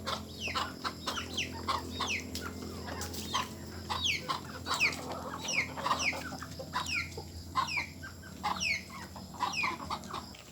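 Chickens calling while feeding: many short, high calls that each fall in pitch, several a second, with scattered clicks among them.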